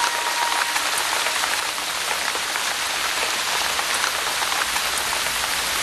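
Rain falling on bare rock: a steady hiss of rain with many small tapping drops.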